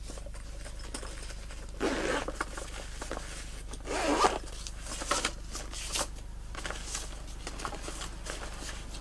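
Zip on a small round fabric carry bag being worked open and shut in several short pulls, with the fabric rustling as it is handled.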